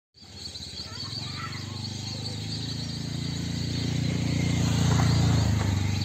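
A steady low droning hum swells to its loudest about five seconds in and then eases off, with faint high chirping of birds or insects above it.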